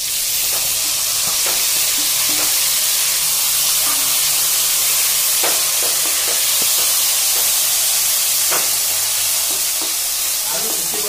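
Chopped tomatoes tipped into hot oil in a metal wok, hitting with a sudden loud sizzle that carries on steadily. Light scrapes and knocks come from a wooden spatula stirring them in.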